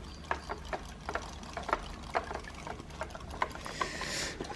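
Irregular light clicks and taps of small plastic toy pieces being handled in a water tank, with water sloshing and a short splash near the end.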